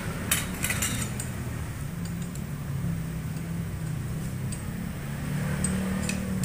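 Socket wrench clinking against the crankshaft pulley bolt of a Toyota Corolla AE112 1.8 engine as it is loosened: sharp metal clinks, a cluster in the first second, then a few scattered ones, over a steady low hum.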